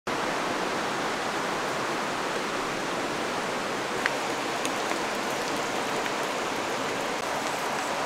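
Steady rushing of flowing water, an even hiss with no rhythm. A brief sharp click about four seconds in.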